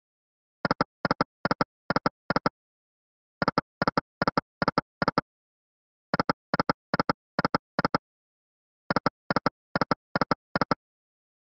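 EGT 100 Cats video slot's reel-stop sound effects during free spins: four spins, each heard as a run of five short electronic clicks about half a second apart as the five reels land one after another, with silence between spins.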